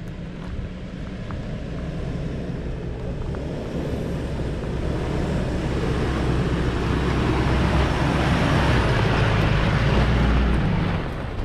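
4x4 engine pulling steadily on an off-road trail, under a rush of tyre and track noise that grows louder through the middle and drops away near the end.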